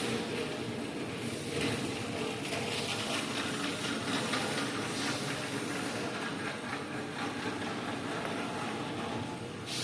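CNC universal camless spring forming machine running in production: a steady mechanical noise with a fast, fine rattle over it.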